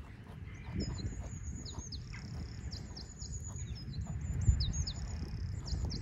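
Small birds chirping with many quick, high chirps, over a steady low rumble and a single thump about four and a half seconds in.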